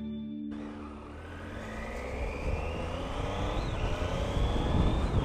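Triumph Tiger's three-cylinder engine pulling hard through the gears, heard from the saddle: the engine note rises, drops with a gear change about three and a half seconds in, then climbs again over steady rushing road noise.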